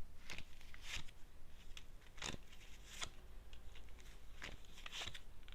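Tarot cards being handled and shuffled: a loose series of light clicks and rustles, irregularly spaced, with the crispest snaps about a second and two seconds in.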